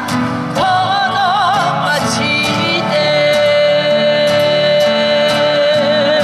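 Acoustic guitar duo strumming chords while singing. About three seconds in, the voice settles into one long held note with vibrato that carries on over the strumming.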